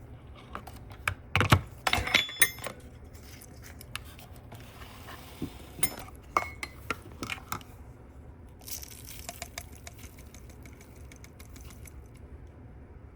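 Kitchen handling noises as a coffee scoop and containers are picked up and set down: a cluster of sharp knocks and clinks in the first few seconds, one ringing briefly like metal, then scattered lighter taps and a short rustle.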